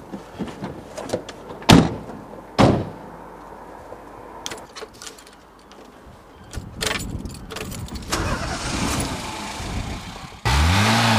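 Two car doors slam shut about a second apart, then smaller clicks and rustles from inside the car. Near the end a much louder, steady sound cuts in suddenly, its pitch rising and then holding, as the key is turned in the ignition.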